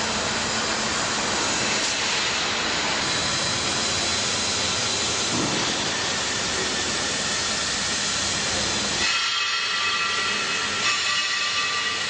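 Steady hissing noise. About nine seconds in, the lower rumble drops away, leaving a thinner hiss with several steady high tones.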